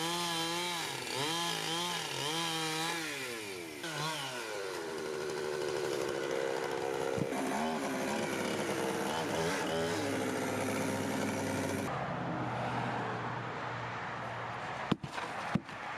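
Chainsaw engine running, its pitch rising and falling as it is revved up and down about once a second, then running more steadily. Two sharp knocks sound near the end.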